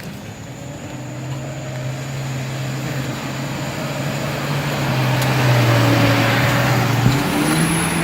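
Off-road SUV engine pulling steadily under load on a steep trail climb, growing louder. A sharp knock comes about seven seconds in, and the engine note steps up right after it.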